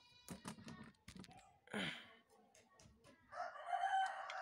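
A rooster crowing once, a long call starting about three seconds in, after a few light clicks and knocks.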